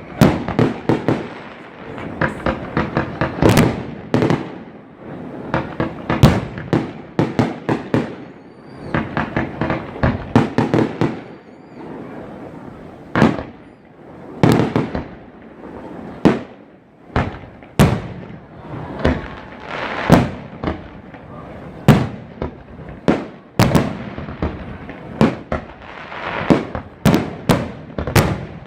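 Fireworks display: a steady run of aerial shell bursts, single booms mixed with clusters of rapid crackling pops.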